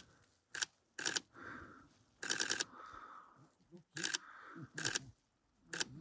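Camera shutter firing in burst mode: single clicks and short rapid runs, the longest about six frames in half a second around two seconds in.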